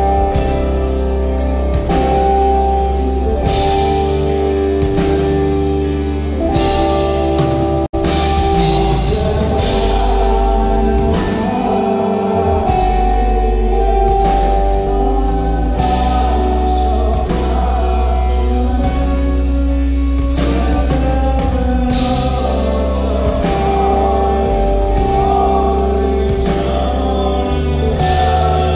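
Live band music without words, with a steady drum beat, heavy bass and sustained chords, cutting out for an instant about eight seconds in.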